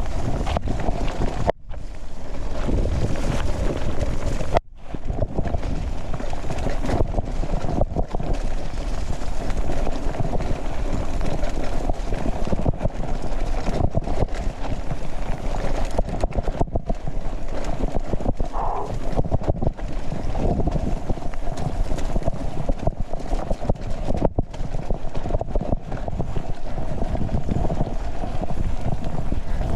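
Wind buffeting an action camera's microphone and a mountain bike rattling over rough ground on a fast descent. The sound drops out briefly a few times.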